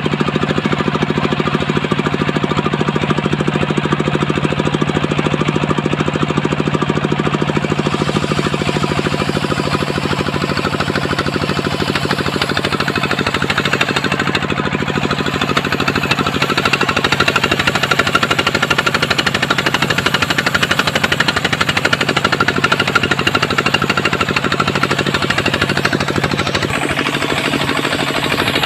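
Homemade engine-driven circular saw running steadily with a rapid knocking beat while sawing a coconut palm trunk into beams. A brighter hiss grows in about halfway through.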